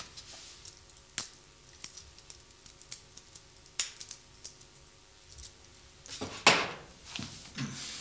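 Paper rustling and small ticks and taps as pages are handled on a desk, with a louder burst of noise about six and a half seconds in.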